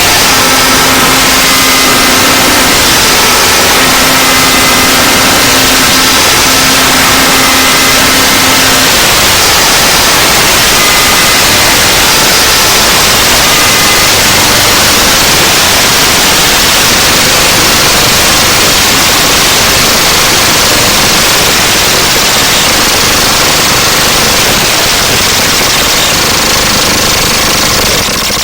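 Loud, harsh, unbroken noise spread across all pitches, like static. Faint steady tones sit under it for about the first nine seconds, then only the noise remains.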